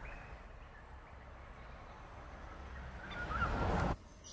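Outdoor bush ambience: a low rumble that swells near the end, with a faint, short bird chirp about three seconds in.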